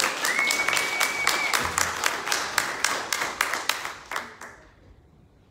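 Applause from a small group, the individual hand claps distinct, dying away about four seconds in. A high steady tone is held for about a second near the start.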